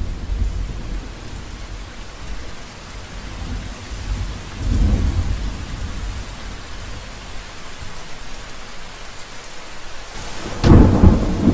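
Steady rain with rolls of thunder: deep rumbles at the start and again about halfway. Near the end, a car boot lid slams shut with a loud thump.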